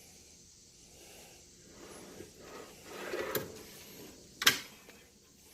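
Metal drawer of a US General 5-drawer tool cart sliding on its runners, ending in a sharp metal clunk about four and a half seconds in.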